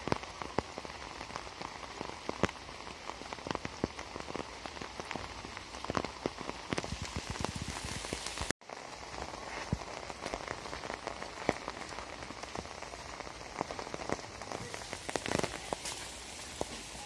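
Heavy rain falling, a steady hiss with many close, sharp drops. The sound cuts out for an instant about halfway through, then carries on.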